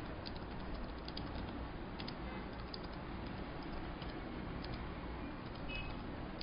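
Computer keyboard being typed on: scattered, irregular light key clicks over a steady background hiss.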